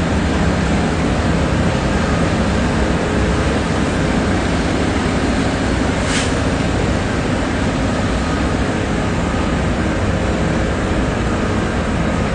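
Steady low rumble of a heavy diesel concrete mixer truck idling at the curb, over continuous city street traffic noise. A short hiss cuts in about six seconds in.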